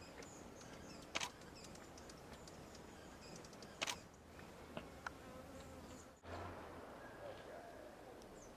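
Faint outdoor background with scattered small high chips and ticks and two sharp clicks, about a second in and near four seconds in.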